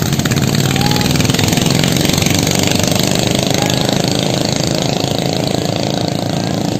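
Small diesel engines of several outrigger racing boats running flat out together, a loud, rapid clatter that eases slightly near the end as the boats pull away.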